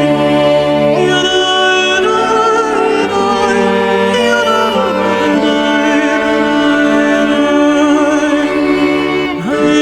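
Background music with sustained string-like tones and a wordless singing voice.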